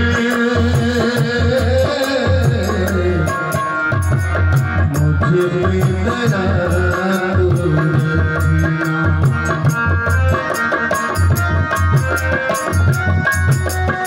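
Harmonium playing a devotional bhajan melody over the steady hand-beaten rhythm of a dholak.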